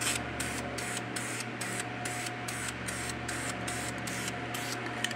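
Aerosol can of black spray paint hissing in quick short spurts as a light coat is laid on a motorcycle timing cover plug.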